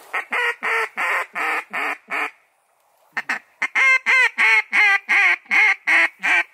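Duck call blown to lure ducks flying overhead: a run of about eight short quacks, a brief pause, then a louder run of about a dozen, each quack dipping in pitch.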